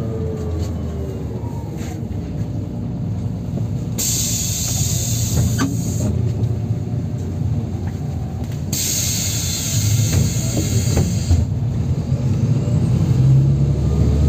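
NefAZ 5299 city bus heard from inside the cabin: the engine and drivetrain whine fall in pitch as the bus slows, two separate bursts of compressed-air hiss from its pneumatic brakes or doors follow, and near the end the engine pitch rises again as it pulls away.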